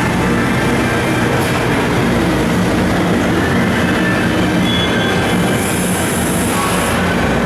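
Mori Seiki SH-630 CNC horizontal machining center running: a steady mechanical hum with a constant hiss over it. A brighter high hiss rises for about a second and a half, around five and a half seconds in.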